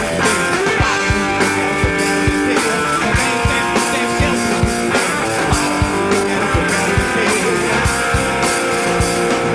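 Live band playing an instrumental passage between sung lines: guitar chords held over a steady drum-kit beat.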